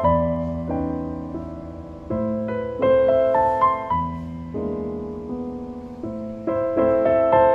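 Background music: a slow, gentle piano piece, with chords struck every second or two that ring and fade.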